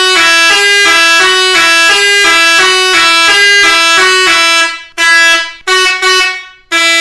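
SEGER 82Ee 24 V electric air horn with three chrome trumpets playing one of its melodies: a quick run of stepping notes. Nearly five seconds in it breaks off into about four short, separate blasts.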